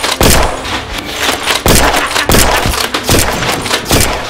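A rapid string of loud, sharp shots from Nerf blasters fired again and again, several of them close together.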